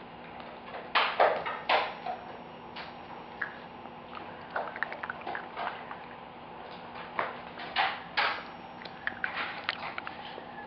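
Italian Greyhound puppy playing with hard gobstopper candies on a hard floor: irregular clicks, taps and knocks, the loudest cluster about a second in.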